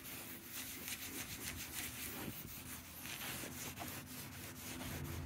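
Microfiber towel rubbing trim restorer into faded plastic bumper trim in repeated back-and-forth strokes.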